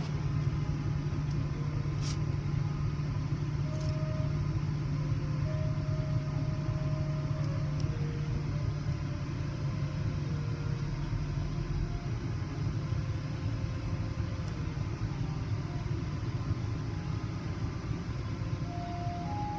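Steady low rumble of an idling car heard from inside its cabin, with faint short high tones coming and going over it.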